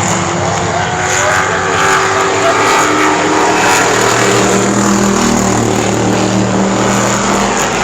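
Several race cars' engines running hard around an asphalt short track: a loud, steady mix of engines, with pitches shifting as cars come past.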